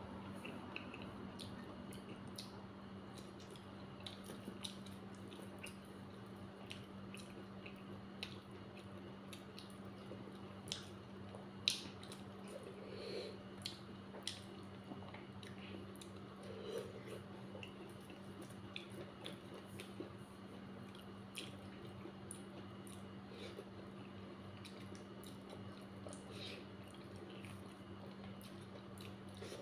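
Mukbang eating sounds: a person chewing a soft dhedo meal up close, with many small wet mouth clicks and smacks. A steady low hum runs underneath.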